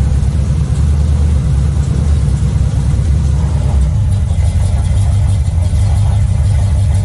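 Old car's engine idling, heard from inside the cabin, with a knock that the owner thinks could be a loose exhaust. The engine note rises a little about four seconds in.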